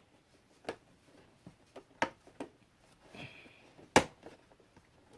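Scattered light clicks and knocks of a duplex receptacle and tools being handled at an electrical wall box while the outlet is lined up, with a brief scrape near the middle and a sharper knock about four seconds in.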